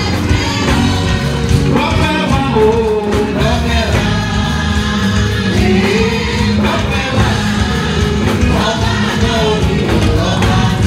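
Church choir singing a lively gospel song, voices at microphones over a steady beat of hand drums.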